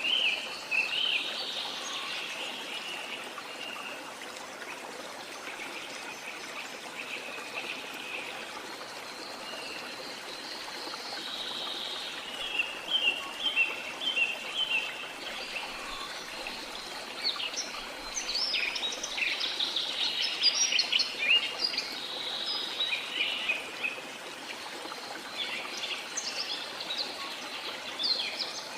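Rainforest soundscape: a steady hiss of falling water under many overlapping bird calls and chirps, which grow busier in the middle and again near the end.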